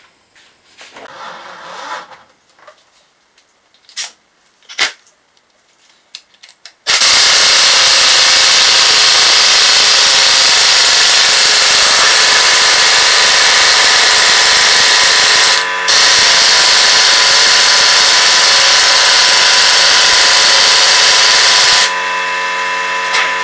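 Air impact wrench hammering continuously for about fifteen seconds on the 27 mm ARP harmonic balancer bolt of an LS V8, with one brief pause near the middle; the bolt is very tight and does not come undone. Before it, a few light knocks as the socket and gun are fitted to the bolt.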